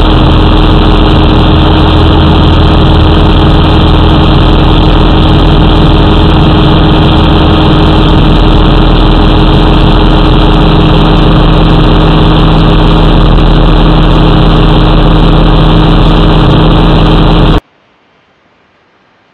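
J-3 Kitten ultralight's engine and propeller running steadily at cruise in flight, heard loud and close from an outside wing-mounted camera with wind rushing over the microphone. Near the end it cuts off suddenly, leaving only a faint hiss.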